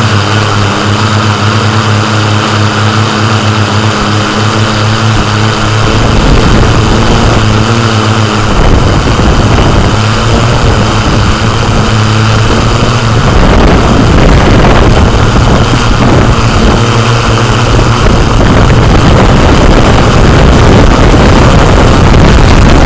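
Yuneec Typhoon Q500+ quadcopter's propellers and motors buzzing loudly over a steady rushing hiss; the hum shifts pitch about six seconds in and again a couple of seconds later as the drone manoeuvres.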